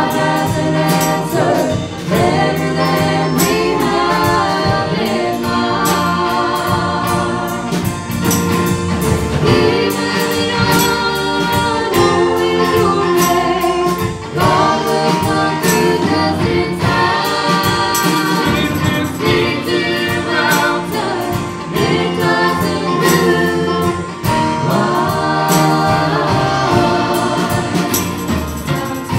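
A mixed vocal group of two men and two women sings a gospel song in harmony, amplified through microphones and backed by a live band on keyboard, guitars and drum kit.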